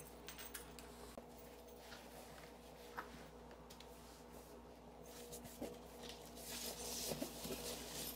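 Faint handling noise: scattered light clicks and taps, and a soft rustling that grows near the end, over a steady low hum in the room.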